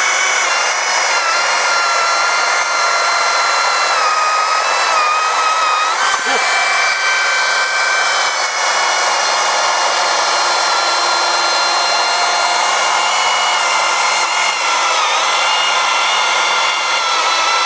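Makita UC012G 40V cordless chainsaw running at full speed and cutting through a 25.5 cm log, a steady high electric whine of motor and chain. The pitch sags a little in stretches as the bar bites into the wood, and the sound changes abruptly about six seconds in.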